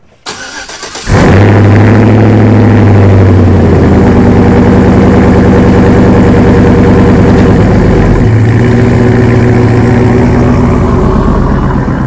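Chevrolet Silverado pickup engine cranking briefly, then catching about a second in and running at a steady fast idle. Its tone shifts slightly about eight seconds in as the idle settles.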